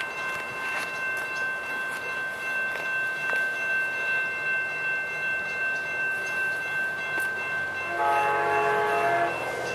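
Grade-crossing warning bell ringing steadily as an Amtrak train approaches. About eight seconds in, the train's horn sounds once, a chord lasting just over a second.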